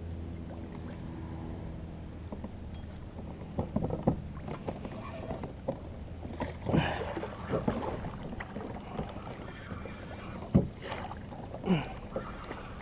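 Water slapping and splashing against a fishing kayak's hull as it moves through choppy water, with irregular sharp knocks and splashes against the hull, the loudest a little over ten seconds in. A low steady hum is heard over the first couple of seconds.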